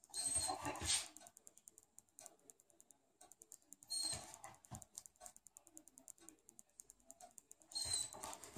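A dog's claws clicking on a hardwood floor as it shifts, turns and walks, with three louder bursts of clattering, each opening with a short high metallic ring.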